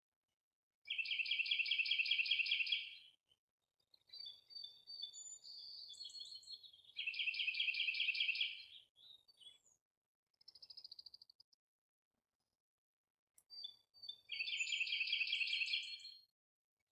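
Songbird singing: three loud, rapid trills of about two seconds each, with softer chirps and whistled notes between them.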